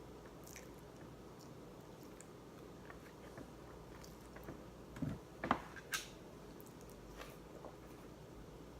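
A person chewing food close to the microphone, with faint mouth sounds throughout and a few sharper smacks and clicks about five to six seconds in.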